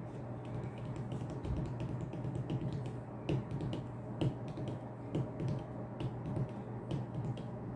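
Light, irregular clicks and taps of tarot cards being handled on a table, over a steady low hum.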